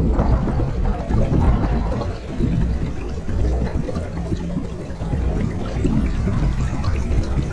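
Water rushing and splashing along the hull of a model Severn Trow sailing heeled over in a fresh breeze, with wind buffeting the microphone.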